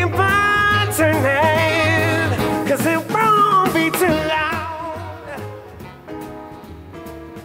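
Live band music with a jazz-funk feel: a bending lead melody over bass and band accompaniment, getting quieter from about five seconds in.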